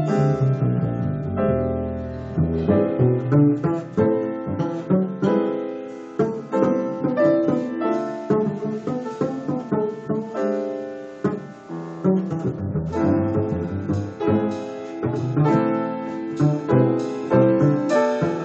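Live jazz piano playing chords and melody, with a double bass underneath, in an instrumental stretch of a slow ballad.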